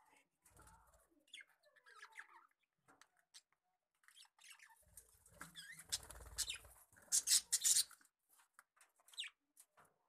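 Budgerigars chirping and chattering in short, scattered notes. About five to seven seconds in comes a low flutter as one flies off, followed by the loudest, sharp high calls.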